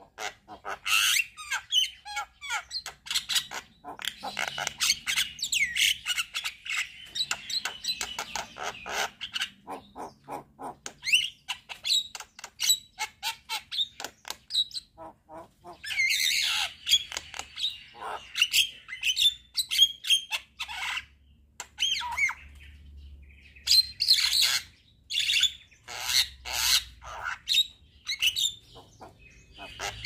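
Javan myna singing a long, varied chattering song of rapid clicks and harsher higher notes, in several bursts with short pauses between.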